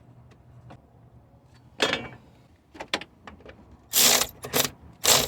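Hand tool working a 10mm bolt tight: a few light clicks, then several short rasping mechanical bursts, the loudest about four seconds in and again near the end.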